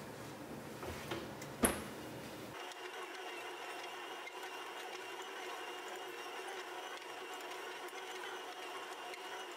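A single sharp metallic clack about a second and a half in, then, from about two and a half seconds in, a stand mixer's motor running steadily as its dough hook kneads a stiff bread dough.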